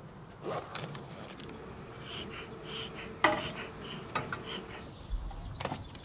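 Honeybees buzzing steadily around a hive, with several sharp knocks and clicks from hive handling, the loudest about three seconds in.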